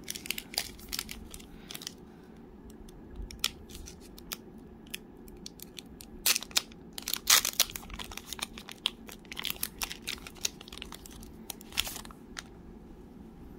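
A Topps Gypsy Queen trading card pack's wrapper crinkling and tearing as it is ripped open by hand. The sound is a run of sharp crackles, loudest about halfway through.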